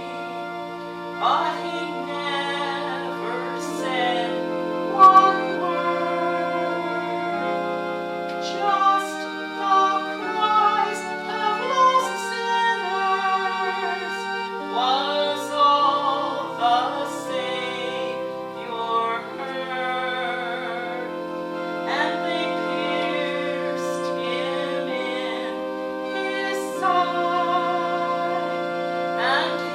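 Slow music: a singer holds long notes with vibrato over sustained chords that change every few seconds.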